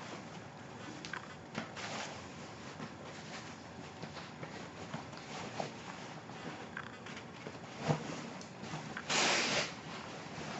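Quiet handling noises as a handbag is drawn from its cloth dust bag: soft fabric rustling with small scattered clicks, and a louder half-second rasp of cloth about nine seconds in.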